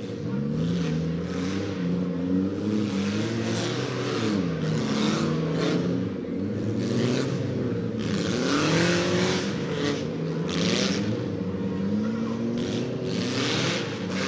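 Several dirt-track race car engines revving, their pitch rising and falling again and again as they throttle on and off around the track, over a steady hum.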